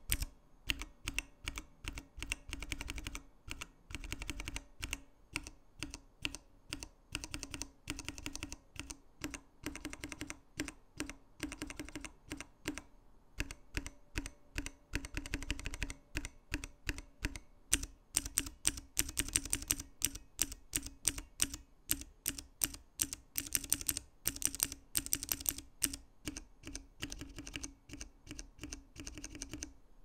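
Cherry MX Blue clicky switch on a switch tester pressed over and over, a sharp click with each press. After a short pause about halfway, a Cherry MX RGB Silver linear switch is pressed over and over; its keystrokes have no click, only the tap of the key bottoming out and returning.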